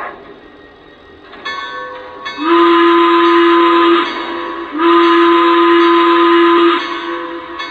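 Lionel Legacy Y6-b model steam locomotive's sound system blowing its steam whistle: two long blasts, the second slightly longer, over a quieter hiss that starts a moment before. Two long blasts are the railroad signal to release brakes and proceed.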